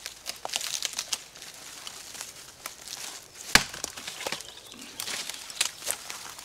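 A branch being broken off a tree by hand: twigs crackling and leaves rustling, with one loud, sharp crack of breaking wood about three and a half seconds in.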